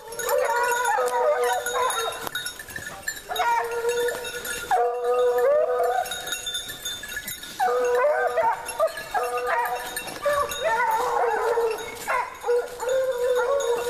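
Pack of hounds giving tongue together, many baying voices overlapping almost without a break. This is the cry of scent hounds working a line during a rapproché, tracking toward the game.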